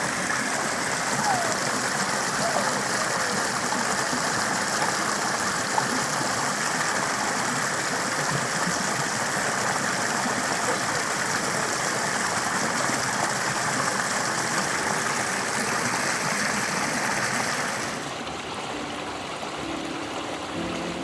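Valley stream water rushing steadily over rocks. About 18 seconds in the sound cuts to a quieter, softer stream, and faint music notes come in near the end.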